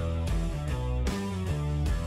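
Background music with a quick, steady beat, covering any aircraft sound.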